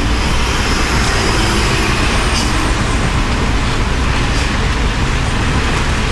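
Steady engine rumble and tyre hiss on a wet road, heard from inside the cab of a moving truck.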